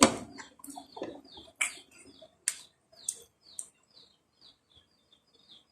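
A small bird chirping over and over in short, high, falling notes, about three a second, mixed with a few sharp clicks in the first couple of seconds.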